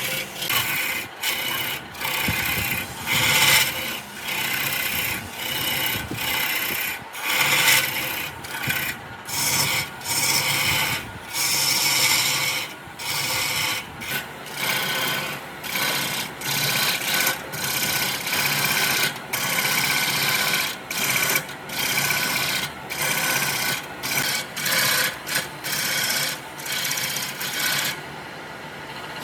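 Hand strokes abrading wood with a scratchy, rasping sound, a little more than one stroke a second with short breaks between, easing off just before the end.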